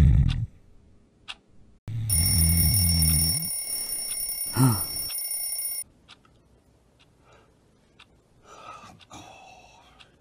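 A low rumbling sound fades out at the start. About two seconds in, an alarm clock rings with a steady high ring for about four seconds and then cuts off abruptly. Faint soft clicks and rustles follow.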